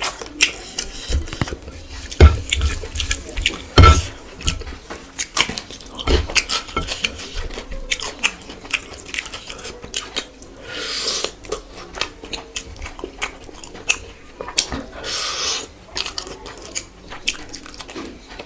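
Close-up eating sounds: wet chewing and mouth clicks with many small ticks, a few dull knocks, and two longer breathy rushes near the middle and two-thirds of the way through.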